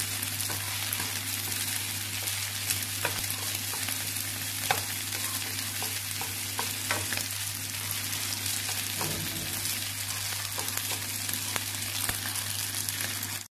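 Cooked rice frying in hot oil in a nonstick frying pan, sizzling steadily while wooden chopsticks stir it and break up the grains, with scattered light clicks of the chopsticks against the pan. A steady low hum runs underneath.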